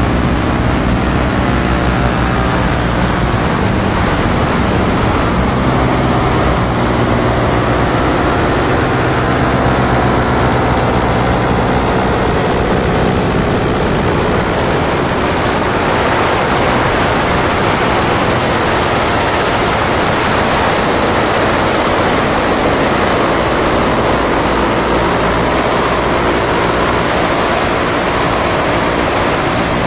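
Loud live electronic noise music: a dense, steady wall of hiss over sustained low droning tones, slowly shifting in texture, with the low drone thinning out for a while in the middle.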